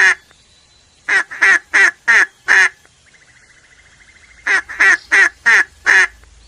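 Duck quacking: two runs of about five loud quacks each, with a quieter buzzy call between them.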